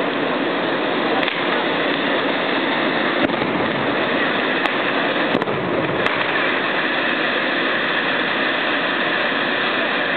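Hand-held tezutsu bamboo tube fireworks spouting fountains of sparks, a loud steady rushing hiss, with a few sharp pops scattered through the first six seconds.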